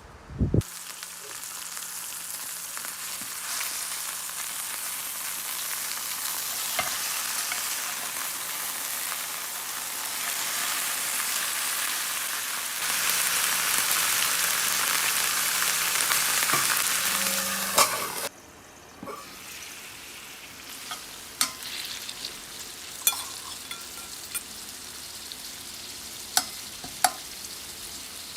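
Food frying in oil in a pan, with a steady dense sizzle and a brief knock about half a second in. About 18 seconds in the sizzle suddenly drops to a quieter hiss, with scattered small ticks and pops.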